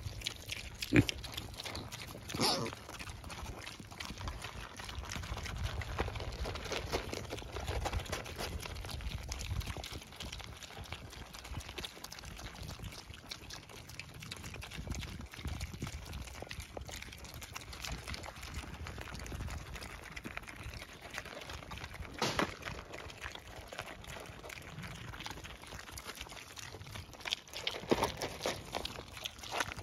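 Piglets chewing and crunching feed pellets from a tray, a busy wet smacking and crackling of many mouths at once, with a few sharper louder sounds, the loudest about a second in and another near the end.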